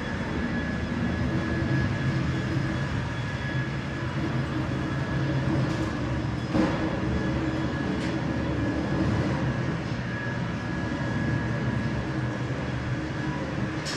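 Heavy-duty tow truck's diesel engine running steadily, with a steady high whine over it and a single sharp click about six and a half seconds in.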